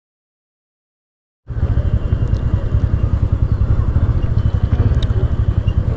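Dead silence for about a second and a half, then a TVS Ntorq scooter riding in traffic: its engine and the road noise make a steady, loud low rumble with a fluttering level.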